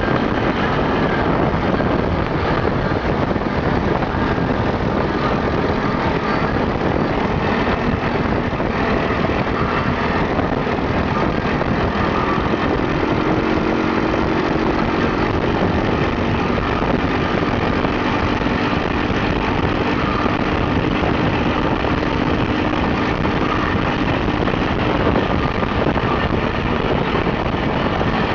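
Open dune buggy's engine running steadily while driving along a gravel road, heard from on board with a constant rush of tyre and wind noise.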